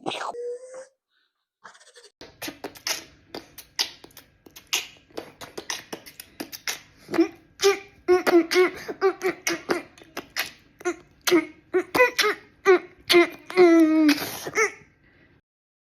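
A person laughing in rapid bursts, breathy at first, then voiced giggles from about halfway through, stopping just before the end.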